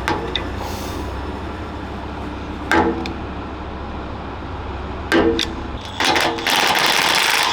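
Metal knocks and clanks on steel armour plate while bolts and fittings are worked loose: a few sharp strikes with a short ring, spaced a couple of seconds apart, over a steady low hum. A loud hiss-like noise comes in about six seconds in.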